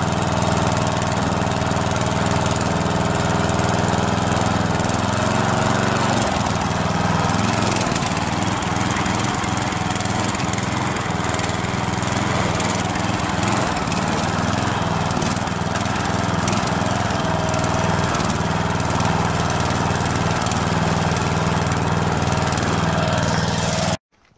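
Ride-on lawn mower's petrol engine running steadily, its note becoming less even about six seconds in as the mower moves off. The sound cuts out abruptly just before the end.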